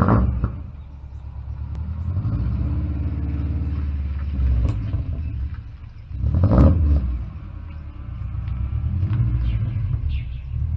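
A car's engine running with a low rumble that swells and fades as the car drives up and turns into a driveway. There are two louder sudden bursts, one at the start and one about six and a half seconds in.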